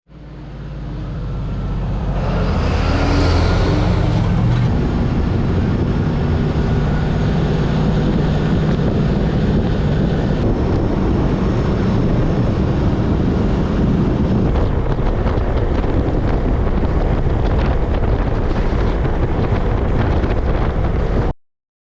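A large engine running steadily under loud wind noise, swelling over the first couple of seconds and cutting off suddenly near the end.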